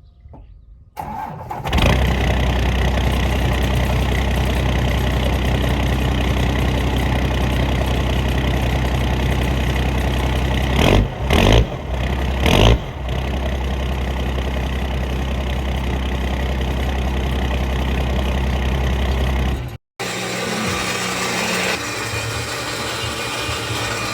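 First-generation Cummins 5.9-litre inline-six turbo diesel cranking and catching about a second in, then idling with a steady rumble, with three quick revs about halfway through. After a sudden cut near the end, the engine runs on at idle with a different tone, a second exhaust setup for comparison.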